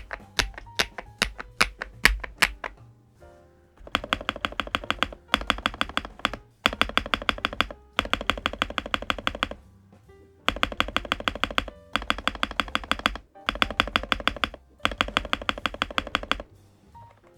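Typing on a KiiBOOM Phantom81 Lite mechanical keyboard with Mochi switches and PC keycaps. It begins with a few separate keystrokes, then from about four seconds in come seven quick runs of rapid keystrokes, each about a second long, with short pauses between them.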